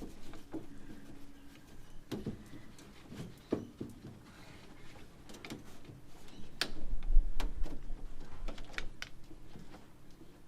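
Irregular clicks and light knocks of hands working at a car door, with a heavier low thump about seven seconds in.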